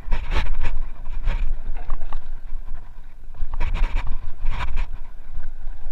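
Mountain bike descending a dirt trail at speed: wind buffets the microphone with a steady low rumble, while the tyres roll over the dirt and the bike clatters and rattles over bumps. The rattles come several times, at about half a second, just after a second, and twice near four seconds in.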